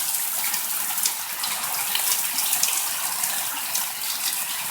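Steady rain falling in a thunderstorm, an even hiss with scattered drop ticks.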